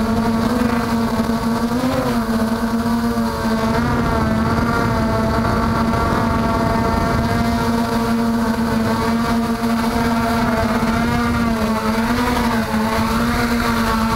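MJX Bugs 3 quadcopter's four brushless motors and propellers running in flight, a steady hum whose pitch wavers slightly as the throttle changes.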